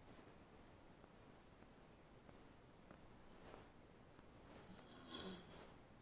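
Near silence with faint, short, high squeaks recurring every half second or so, and two brief scraping bursts, about three and a half and five seconds in.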